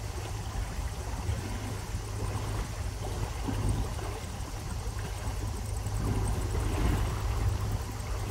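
Boat engine running steadily while underway, a low rumble with an even hiss over it.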